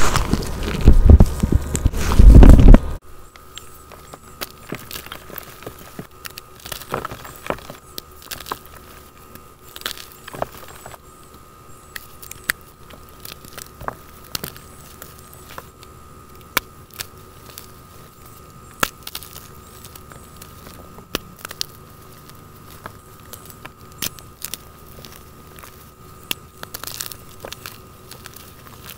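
Gym chalk crushed by hand: about three seconds of loud, dense crunching from water-soaked chalk being squeezed, then, after a cut, scattered quiet crackles and crunches as dry chalk blocks are crumbled between the fingers.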